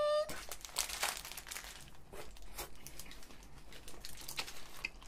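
Paper burger wrapper crinkling as it is handled, with the wet crunch of chewing a bite of burger with raw onion and lettuce, in many short irregular rustles and crunches.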